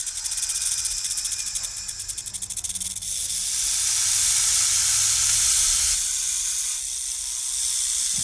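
Steady hissing, with a fast, even flutter running through it from about one to three seconds in.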